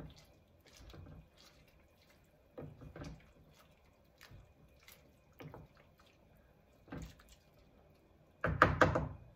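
A wooden spoon stirring a pot of thick soup with kale, making soft scrapes and liquid sloshes every second or so. Near the end comes a much louder clatter of several quick knocks of the spoon against the pot.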